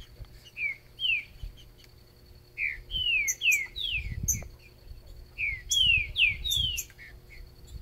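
Green-winged saltator (trinca-ferro) singing: a series of short, clear whistled notes, each sliding downward, delivered in quick phrases, busiest in the second half. Low rumbling on the microphone comes and goes underneath.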